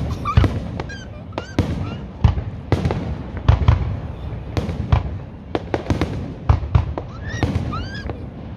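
Fireworks display: aerial shells bursting in quick, irregular succession, many sharp bangs over a low rumble, with a few short rising whistles near the end.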